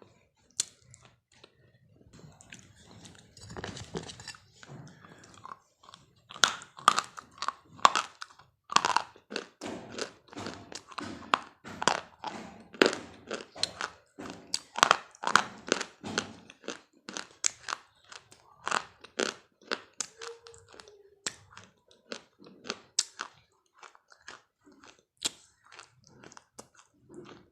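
A person chewing and biting crunchy food close to the microphone: a quick run of sharp crunches, two or three a second, louder from about six seconds in.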